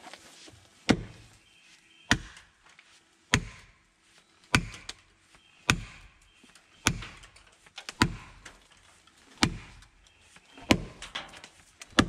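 The back (poll) of an axe is driving a felling wedge into the back cut of a dead standing tree, to tip it over. There are nine sharp blows, about one every 1.2 seconds.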